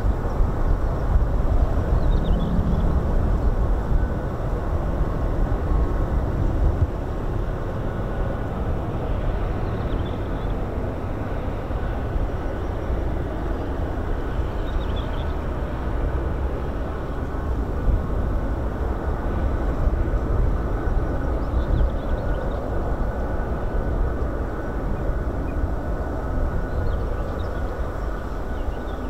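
Jet engines of an Airbus A330 Voyager tanker running steadily: a deep rumble with a faint, even whine on top, a little louder during the first several seconds.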